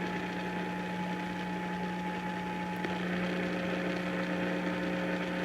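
Steady electrical hum with a few fainter steady tones above it; one of the higher tones shifts lower about three seconds in.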